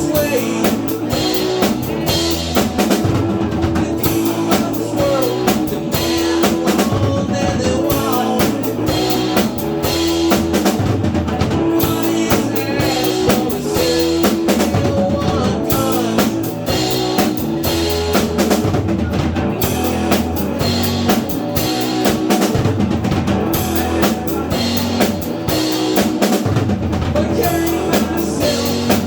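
A band playing live, a drum kit keeping a steady beat with bass drum and snare under bass and other instruments.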